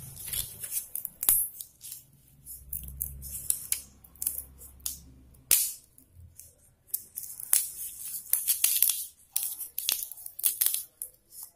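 A dry, vine-ripened French bean pod being cracked and split open by hand: irregular crisp crackles and snaps of the papery, brittle shell.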